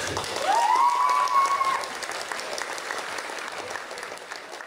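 Audience applauding, the clapping starting abruptly and slowly dying away. Near the start one voice in the audience gives a rising whoop, held for about a second.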